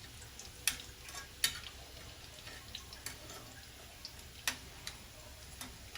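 Sardine fritters frying in a pan of oil: a faint steady sizzle with a few sharp, separate pops.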